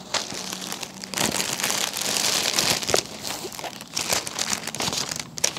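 Packaging crinkling and rustling as it is handled, in a run of irregular crackles.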